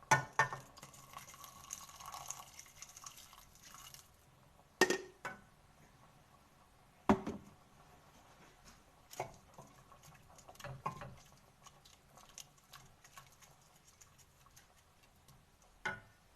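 Kitchen utensils knocking and clinking against a cooking pot a handful of times, with a hiss of hot liquid in the first few seconds, as an onion and herb soup cooks.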